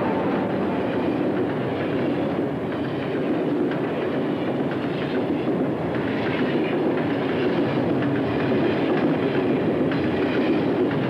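Freight train rolling by, its wheels steadily clattering over the rail joints.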